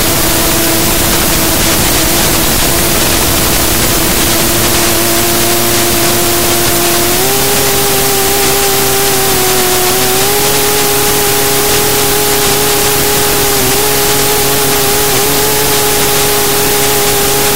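Race quadcopter's motors and propellers humming in flight under loud wind rush. The hum holds one steady pitch, steps up about seven seconds in and again around ten seconds with throttle changes, and dips slightly near the end.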